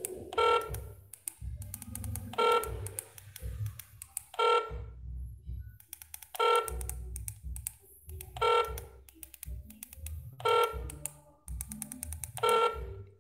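An electronic beep from a handheld satellite finder meter, short and repeating evenly about every two seconds. Faint clicks of its keypad buttons being pressed come between the beeps.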